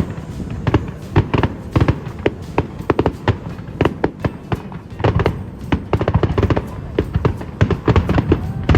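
Fireworks going off in a rapid, irregular string of bangs and crackles, several a second, with no let-up.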